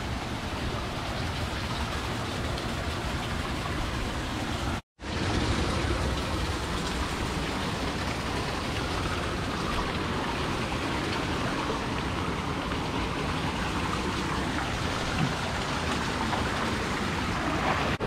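Steady rush of river water running over rock at the top of a waterfall, broken by a split-second gap about five seconds in.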